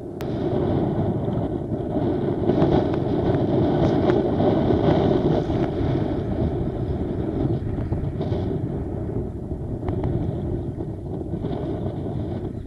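Wind buffeting the camera's microphone: a steady low rumble, over choppy sea water.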